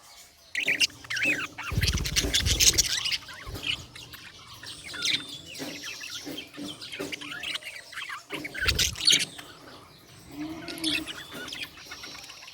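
Budgerigars chirping and chattering in quick, irregular high calls, with two spells of low rumbling thuds, the first about two seconds in and the second near nine seconds.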